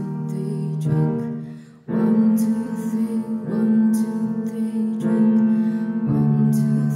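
Female voice singing over grand piano chords with acoustic guitar strumming. The music drops out briefly just under two seconds in, then comes back in.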